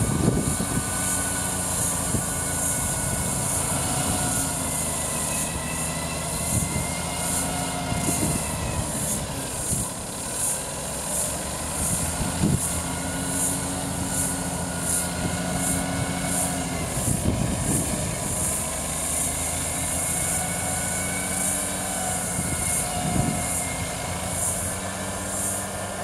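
Roboflail 1 remote-control slope mower running steadily under load as its flail cuts thick, dense grass, the engine note wavering slightly, with a few dull thumps along the way.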